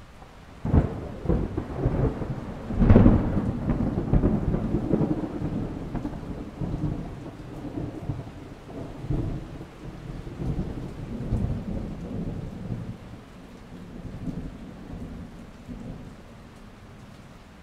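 Thunder: a sudden crack under a second in, at its loudest about three seconds in, then a long low rumble that slowly fades. A steady hiss of rain runs underneath.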